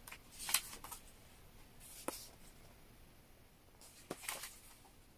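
Faint handling of paper photo cards: a few soft rustles, with one sharp click about two seconds in.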